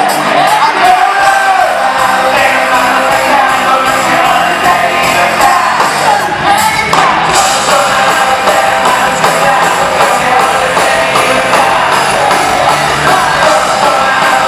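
Live rock band playing loud through a PA in a large hall: electric guitar through Marshall amplifiers and drums, with shouted and sung rock vocals on microphone.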